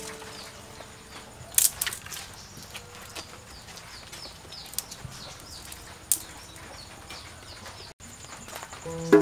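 Twig fire crackling in a clay cook stove, with a few sharp pops; two loud pops come close together about a second and a half in. Faint rapid chirping runs underneath.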